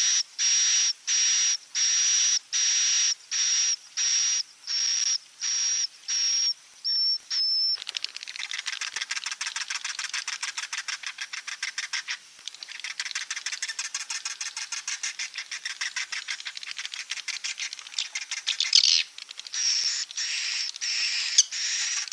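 Edible-nest swiftlet calls from a swiftlet-house roosting lure recording. It opens with a run of evenly spaced buzzy chirps, about two a second, then after about eight seconds turns into a dense, fast chittering of many birds, and the spaced chirps come back near the end.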